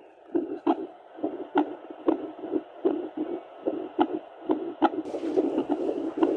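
Heartbeat heard through a Doppler monitor: a fast, regular whoosh-whoosh of pulses, about two beats a second. A faint hiss joins about five seconds in.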